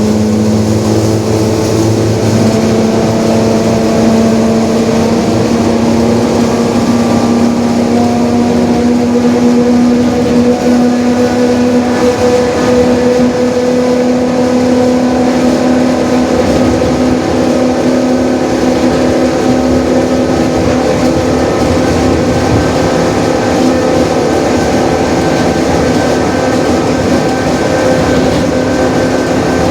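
Mercedes-Benz OF-1721 Bluetec 5 city bus under way, its diesel running steadily while the differential growls with a steady whine whose pitch creeps up slightly and then holds.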